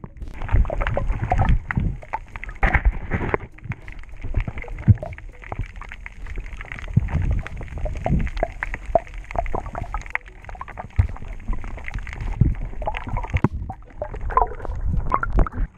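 Water sounds heard through an underwater camera housing as a diver swims: uneven gurgling and rushing with many small clicks and knocks.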